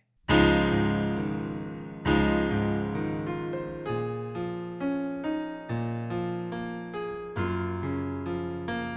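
Electronic piano recorded directly through an audio interface's line input, playing a slow chordal introduction. A new chord is struck every one to two seconds and left to ring and fade.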